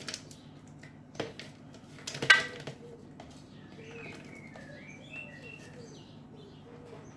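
Frozen berries clattering into a blender jar, with a few sharp knocks and the loudest about two seconds in. Faint bird chirps follow in the second half.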